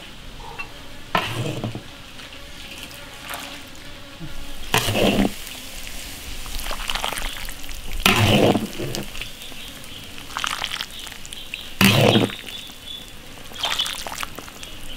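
A metal ladle scooping soupy tomato fish stew out of an iron wok and pouring it into a clay pot, with scrapes and splashes of liquid. The loudest scoops come about a second, five, eight and twelve seconds in.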